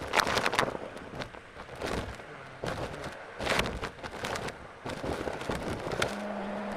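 Irregular bursts of scratchy crackling, then a Henry vacuum cleaner's motor starting up about six seconds in with a steady hum.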